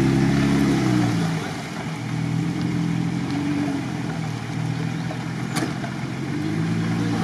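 Jeep Wrangler Rubicon's engine pulling through mud: loud for the first second, then easing off and running steadily at lower revs, and picking up again near the end.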